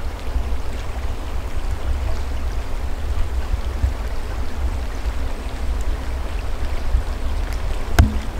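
Steady low rumble of wind buffeting the microphone over the faint rush of a forest stream, with one sharp click near the end.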